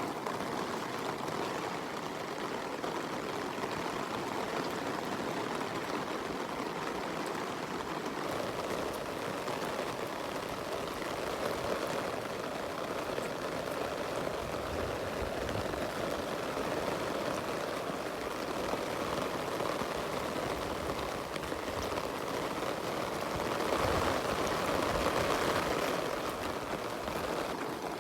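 Rain falling steadily, a dense even patter that grows a little louder for a couple of seconds near the end.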